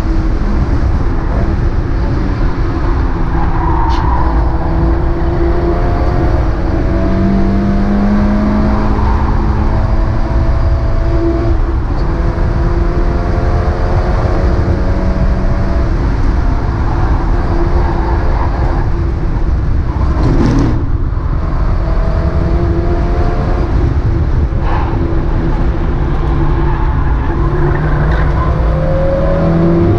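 Mazda MX-5 race car engine under hard acceleration, its note climbing in pitch through each gear and dropping back at the shifts, with several breaks as it lifts and changes gear.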